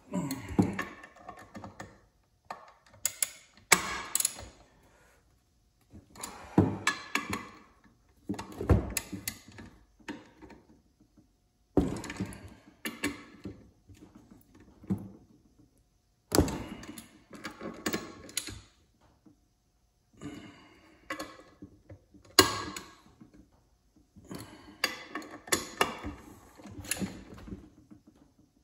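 Ratchet wrench clicking in repeated short bursts, with metal clinks and knocks, as the ring gear bolts on a snowmobile drive clutch are turned.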